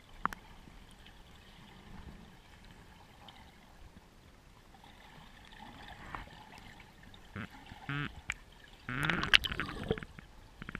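Muffled underwater sound picked up by a camera below the surface, with a few sharp clicks and a louder burst of bubbling gurgles near the end.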